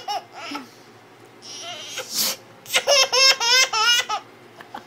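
Baby laughing: a few short giggles, a breathy gasp about two seconds in, then a quick run of high-pitched laughs for over a second.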